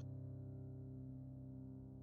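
Quiet background music: a soft held chord, slowly fading.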